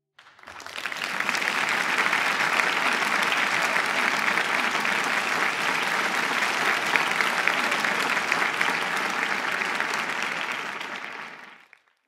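Audience applauding: the dense, steady clatter of many hands clapping, swelling up within the first second and fading out near the end.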